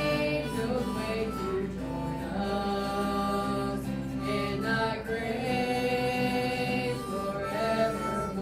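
Gospel song sung by a woman over strummed guitar chords, in long held notes that slide from one pitch to the next.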